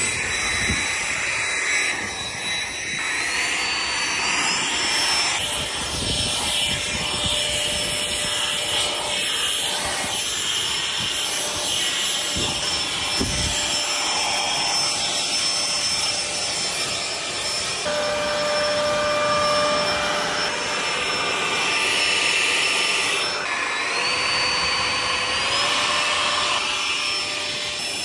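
Battery-powered backpack leaf blower running, blowing dry pine needles, a steady rushing hiss with a whine. The whine steps up in pitch twice, a few seconds in and again about three-quarters of the way through.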